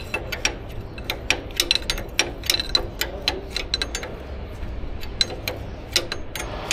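Hand tools working on metal engine fuel fittings: irregular sharp metallic clicks and clinks, some in quick clusters, over a steady low hum.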